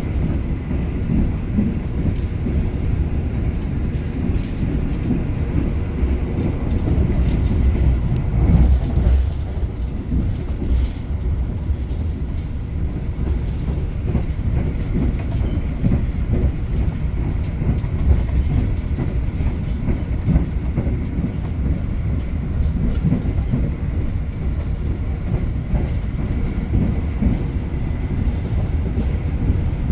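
Argo Bromo Anggrek express passenger train running at speed, heard from on board: a steady low rumble of wheels on rail with irregular clatter, growing a little louder about eight seconds in.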